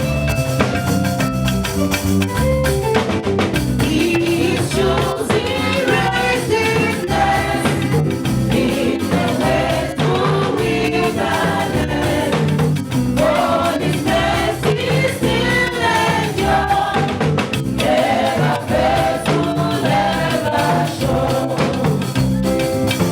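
Church choir singing a hymn with live band accompaniment, drums and a steady bass under the voices.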